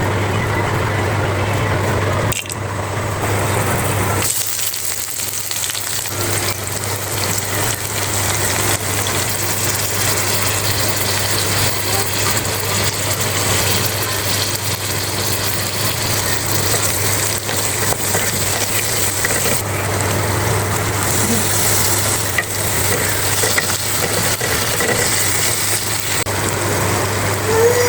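Food frying and sizzling in a hot pan, a steady crackling hiss, with a constant low hum underneath.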